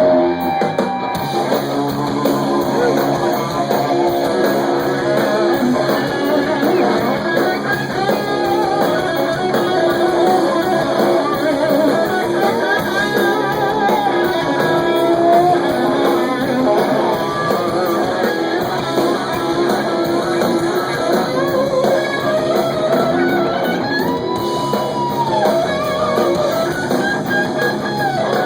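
Live rock band playing loudly, led by an electric guitar whose notes glide and bend up and down, over bass guitar and drums.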